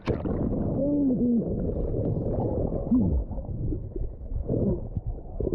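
Underwater sound in a swimming pool as a person in a bee suit goes under: the sound turns suddenly muffled at the start, then a dense low rumbling and bubbling of churned water, with a few brief muffled wavering tones about one and three seconds in.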